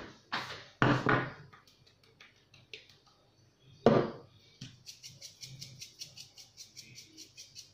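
A handheld spice grinder being twisted over a bowl, giving a steady run of small clicks about four or five a second from about five seconds in. Before that, a few knocks from handling the grinder and bowl, the loudest about four seconds in.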